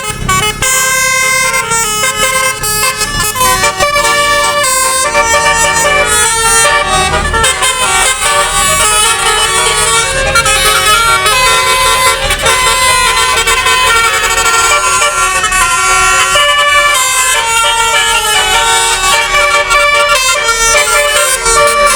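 Indonesian bus 'telolet' basuri horn, a bank of multi-tone air horns, playing a melody of held notes that step from pitch to pitch, loud and continuous.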